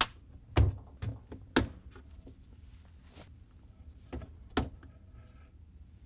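Plastic dishwasher docking station being popped off its locking tab with a flathead screwdriver and pulled free: a series of sharp plastic clicks and knocks, four in the first two seconds and two more about four seconds in.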